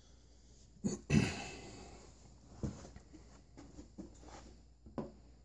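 Hand handling small screws and tools on a rubber work mat: a sharp knock about a second in, a louder clatter that fades over about a second, then several light clicks.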